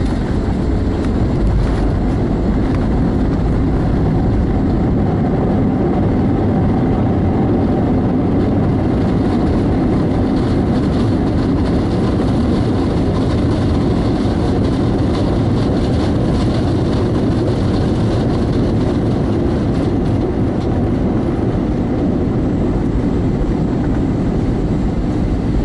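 Airbus A320 heard from inside the aircraft: a steady rumble of engines and airflow that holds even, with no sudden changes.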